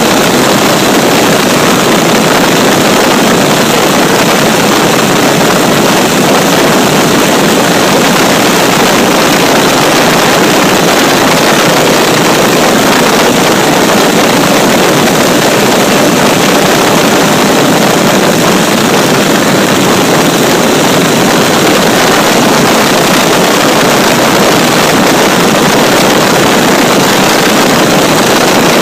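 Intercooled turbo-diesel motorcycle engine running loud and steady at road speed, heard right beside the engine, mixed with wind rushing over the microphone.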